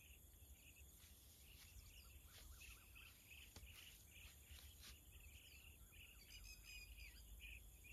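Near silence with faint birds calling: many short, varied chirps.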